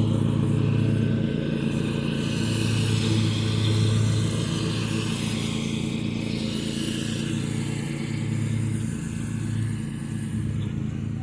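Zero-turn riding lawn mower engine running steadily as it mows, slowly growing fainter.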